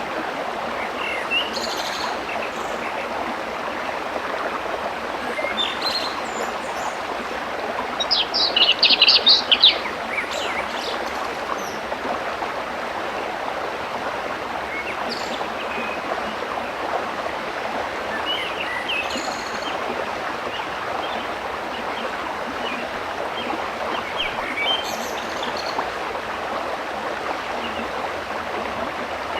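Waterfall rushing steadily, with birds chirping now and then over it. About eight seconds in, a bird gives a loud burst of rapid high chirps lasting about two seconds.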